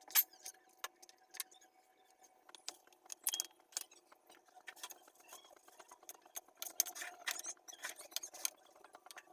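Scattered light clicks and taps of kitchen handling during food preparation, uneven and irregular, with a few sharper knocks around three seconds in and near seven seconds in.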